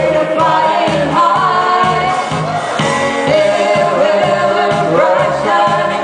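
A man and a woman singing a duet into microphones through a PA, over backing music with a steady, regular beat.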